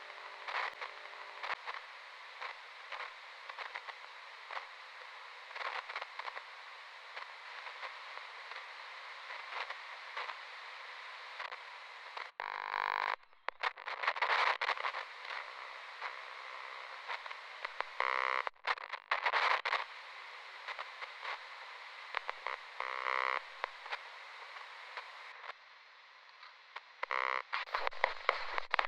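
Crackling, hissing broadcast static with no programme on it, broken by four short buzzing bursts spread through it and a couple of brief dropouts.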